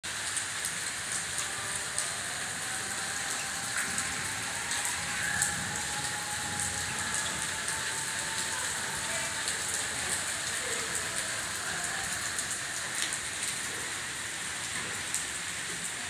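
Steady rain falling, a constant hiss with many small drops ticking on hard surfaces.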